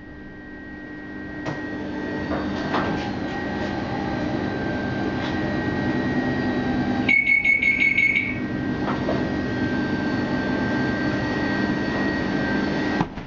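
Inside a Tatra KT4 tram at a stop: the steady hum of the tram's onboard equipment, with a few clunks as it halts and the folding doors open. About seven seconds in, a buzzing signal tone sounds for about a second.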